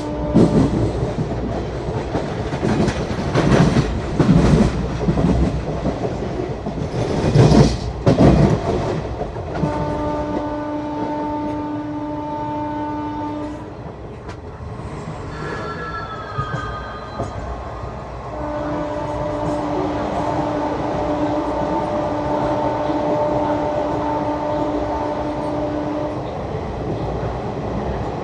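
WAP7 electric locomotive horn sounding long blasts over a passing train. For the first several seconds there is only rumble and wheel clatter over the rail joints, with a few heavy knocks. Then the horn sounds for about four seconds, a brief higher horn note slides down in pitch, a second long blast holds for about seven seconds, and a third begins near the end.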